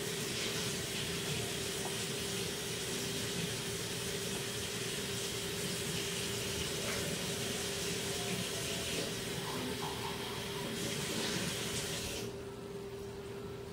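Steady rushing hiss over a steady low hum; the hiss cuts off abruptly about twelve seconds in while the hum continues.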